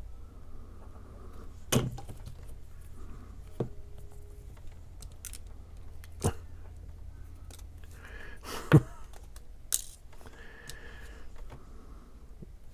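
A handful of sharp taps and knocks, about five, from small craft pieces and tools being handled and set down on a work table, the loudest near nine seconds in.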